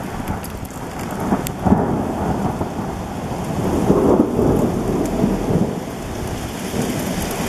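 Thunder rumbling during a winter thunderstorm, swelling about two seconds in and again around four seconds in, over a steady hiss of falling hail and rain with a few sharp ticks. The sound cuts off suddenly at the end.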